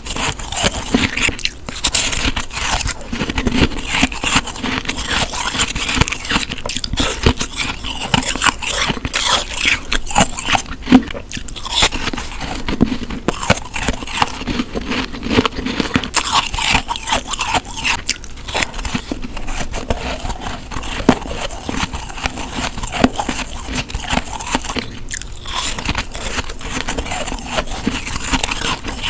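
Close-miked biting and chewing of packed snow: continuous wet crunching and crackling as bite after bite is crushed between the teeth.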